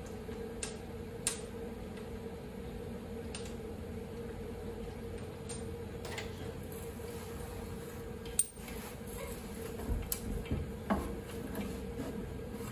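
Scattered metallic clinks and knocks of hand tools on the rear suspension as the coilover's lower mount is worked loose, with one sharp knock about eight seconds in and a cluster of knocks near the end, over a steady low hum.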